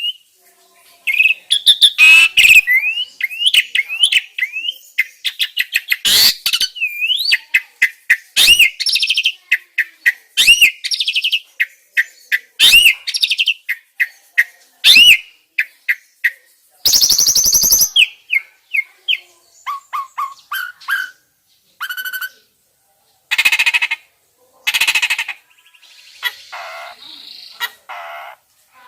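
Starlings and mynas (jalak) calling in a fast, loud string of whistled chirps and up-and-down whistles. Harsh, scratchy chatter is mixed in, with a rasping call lasting about a second past the middle.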